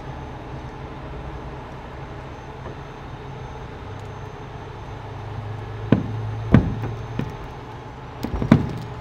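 Heavy tow truck's engine and winch running with a steady low hum that grows louder about four seconds in as the cable is taken in, then a few sharp knocks of the rigging hardware in the last few seconds.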